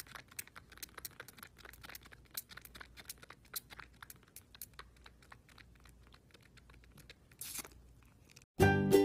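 Tabby kitten suckling on a bottle's nipple: a run of soft, irregular clicks and smacks, several a second. Music comes in near the end.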